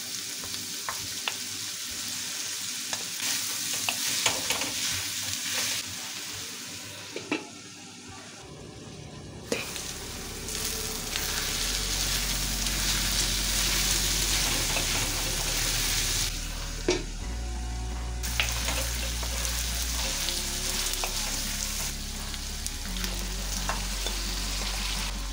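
Diced chicken sizzling in hot oil in a wok, stirred and scraped with a wooden spatula, with sharp clicks as the spatula knocks the pan. Soft background music with low bass notes comes in about eight seconds in.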